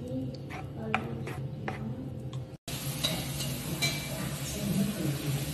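Wooden spoon stirring and tapping ghee melting in a nonstick frying pan, with a few sharp clicks against the pan. The sound breaks off about two and a half seconds in, and a steady hiss with a few ticks follows.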